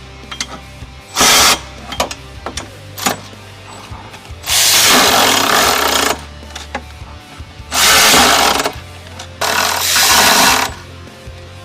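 Electric ratchet with a 14 mm socket running in four bursts, one short and three lasting a second or more, tightening the tow hitch's bolts, with a few clicks between the bursts. Background music with a steady low beat runs underneath.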